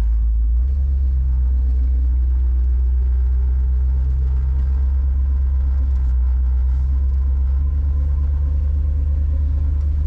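1966 Plymouth Fury driving, heard from inside the cabin: a steady, deep engine and road rumble.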